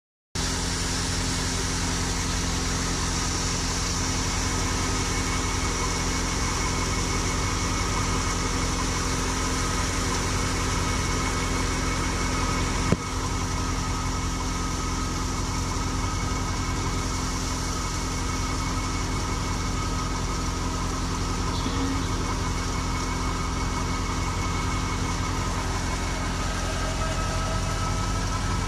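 Fiat 640 tractor's diesel engine running steadily under load, driving a Dogar wheat thresher as wheat sheaves are fed in: a continuous drone of engine and threshing drum. A single sharp knock comes about halfway through.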